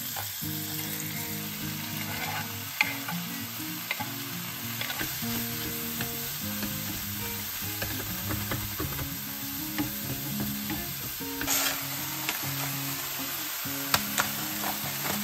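Sliced button mushrooms and garlic sizzling steadily as they fry in butter in a nonstick pan, stirred with chopsticks that click against the pan now and then. Soft background music runs underneath.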